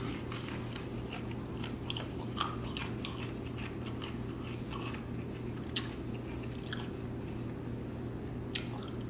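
A person chewing and biting chicken wings close to the microphone: scattered short mouth clicks and smacks, busiest in the first few seconds and sparser after, over a steady low hum.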